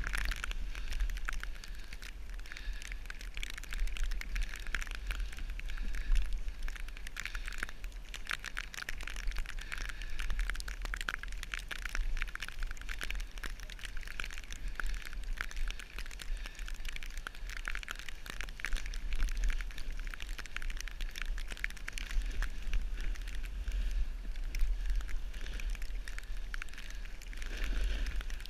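Snowboard sliding over fresh snow: a steady crackling hiss, full of fine ticks, that rises and falls in level. Under it runs a low rumble of wind on the camera's microphone.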